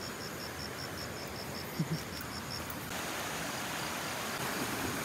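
An insect chirping in a steady rhythm of short, high pulses, about three to four a second, which stops about two and a half seconds in. A brief low double sound comes near the middle, and a broad, even hiss grows louder just after the chirping stops.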